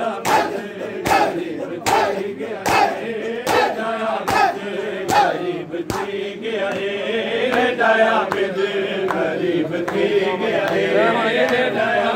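Crowd of men chanting a lament in unison during matam, with hand-on-chest beating at a steady pace a little faster than one stroke a second. The beating fades about halfway through while the chanting carries on.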